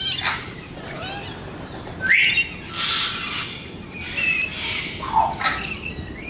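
Several parrots squawking and chirping in short, separate calls. There is a sharp rising shriek about two seconds in, then harsh squawks and whistled notes, and a falling call near the end.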